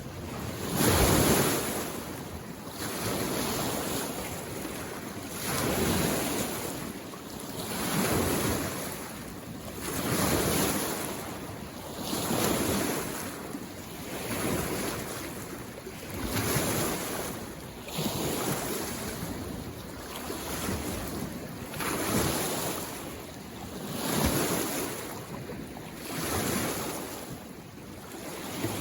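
Small waves from a mountain lake washing in on the shore, a hiss of water that swells and falls about every two seconds.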